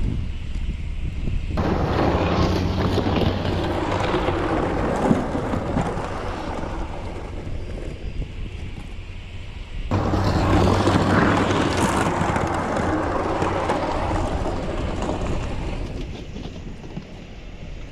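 Snow-plow truck's engine working under load while the plow blade scrapes and pushes snow, in two long surges that start suddenly about 2 and 10 seconds in.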